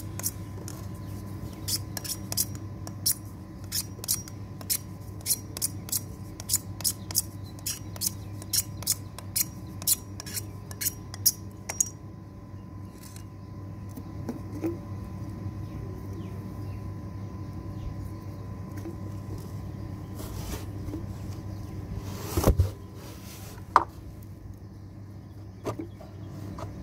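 An applicator stick clicking against the metal tin of PVC solvent cement while the cement is worked up, about two clicks a second, stopping about twelve seconds in. Later a louder thump, then a single sharp knock.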